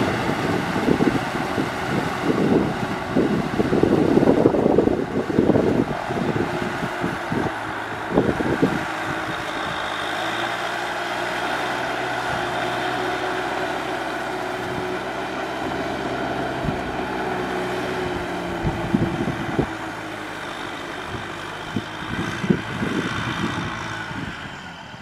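Kubota M6040SU tractor's diesel engine running steadily under load as it pulls a rotary cultivator through paddy mud. Low buffeting gusts lie over it through the first third and again near the end.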